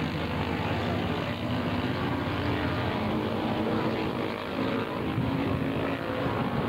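Sports racing car engine running steadily, a rough, even drone with no revving.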